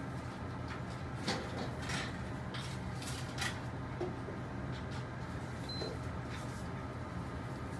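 Steady hum of laboratory equipment, with several soft scattered clicks and a brief high beep about six seconds in.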